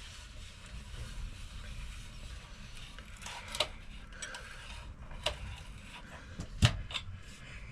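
A few sharp, separate clicks and knocks of tools and metal parts as the top cap is unscrewed from a KYB open chamber fork leg, the loudest about two-thirds of the way through, over a low steady hum.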